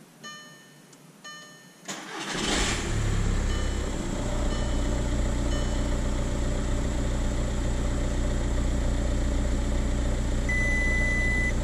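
A VW Touran's 1.9 TDI four-cylinder turbodiesel being started: about two seconds in it cranks briefly, catches at once and settles into a steady idle. Two short beeps come before the start, and one steady beep near the end.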